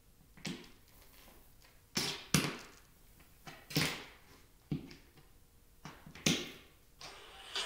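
Metal tap plates on high-heeled loafers clicking on a hardwood floor during slow walking: about nine separate sharp taps at uneven spacing, some in quick heel-and-toe pairs, each ringing briefly.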